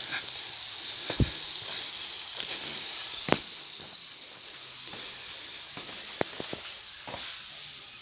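A steady high hiss, with three short sharp knocks or handling clicks, the loudest about three seconds in.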